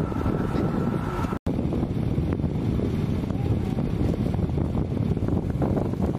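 Jet engines of departing KC-135 Stratotankers: a steady low rumble with a thin high whine, cut off abruptly about a second and a half in. After that comes a steady low rumble with wind on the microphone.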